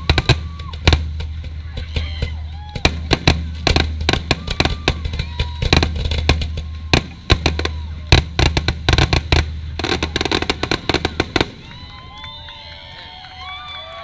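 Fireworks finale: a rapid barrage of bangs and crackling bursts over a deep rumble, stopping abruptly about eleven and a half seconds in. The crowd then cheers and shouts.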